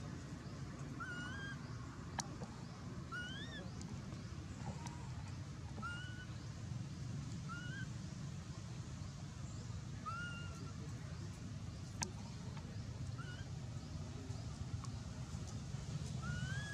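A bird calling over and over: short whistled notes, each bending upward in pitch, about one a second, over a steady low outdoor rumble.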